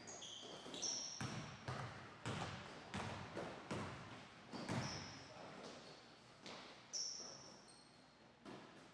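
A basketball dribbled on a hardwood gym floor, a series of bounces, with a few short high sneaker squeaks on the court.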